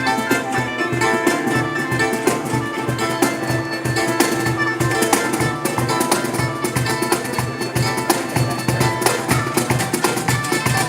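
A band playing an instrumental passage: a plucked string instrument over a steady beat and bass.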